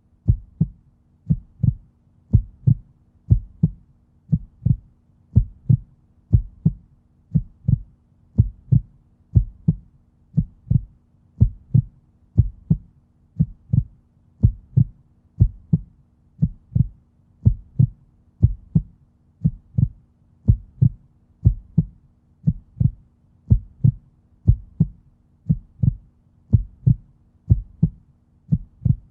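A steady, even rhythm of dull low thumps, each a close double beat, repeating a little faster than once a second over a faint low hum.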